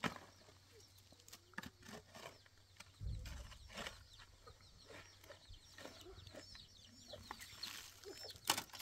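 Shovel digging into stony, gravelly ground: repeated scrapes and clinks of the blade against gravel and rocks, with a sharp strike near the end. Chickens cluck in the background.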